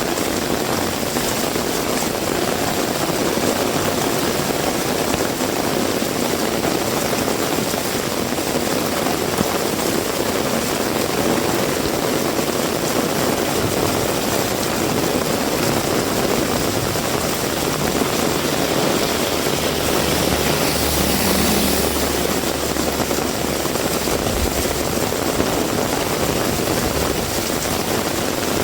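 Heavy rain pouring steadily. A low rumble comes in for a few seconds about twenty seconds in.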